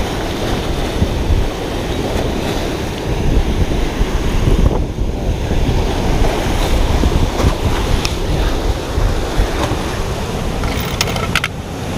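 Loud, steady rush of high water pouring from an open dam's outlet and churning below it, with wind buffeting the microphone. A few sharp clicks near the end.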